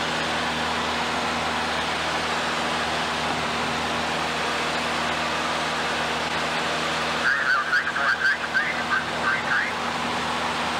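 Steady aircraft engine and cabin noise, heard from inside the aircraft, with a constant low engine drone. About seven seconds in, a short stretch of muffled talk breaks through for about two seconds.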